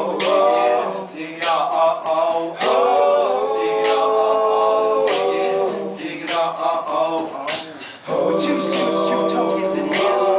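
High school men's choir singing a cappella in close harmony: held chords in phrases a few seconds long, with brief pauses for breath between them and one long sustained chord in the middle.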